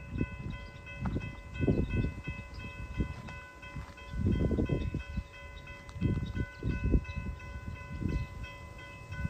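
Wind buffeting the microphone in irregular gusts, with a faint steady high ringing of several tones underneath.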